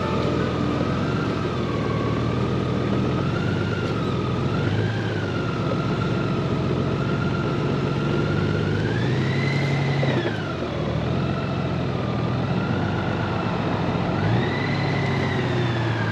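Honda Gold Wing motorcycle riding on the road, its engine running steadily with a whine that wavers in pitch and twice rises and falls as the bike speeds up and slows, about halfway through and again near the end.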